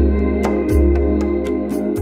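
Background music: sustained chords over a deep bass note that restarts every second or so, with light percussion ticks.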